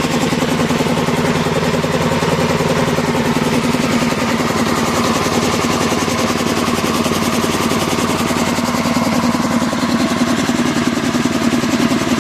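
Petrol engine of an air compressor running steadily with a fast, even beat, on its first run after five years standing unused.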